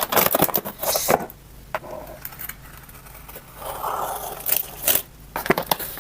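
A large cardboard shipping box being opened by hand, with scraping and tapping on the cardboard and its packing tape. There is a quick run of scrapes and taps in the first second and more near the end.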